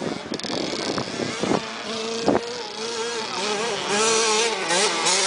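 Small 50cc motocross bike engine revving, its pitch wavering up and down as the throttle is worked, growing louder as the bike comes closer. A sharp knock sounds about two seconds in.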